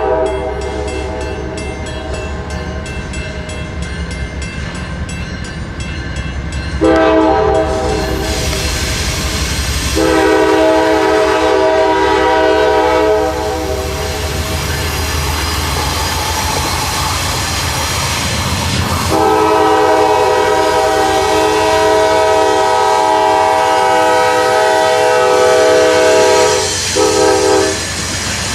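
Train air horn sounding: a blast about seven seconds in, a long blast from about nineteen seconds in, then two short toots near the end. Between the blasts the train's low rumble and wheel clatter carry on.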